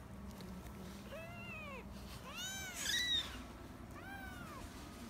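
Young kittens mewing: four mews, each rising then falling in pitch, the loudest about three seconds in.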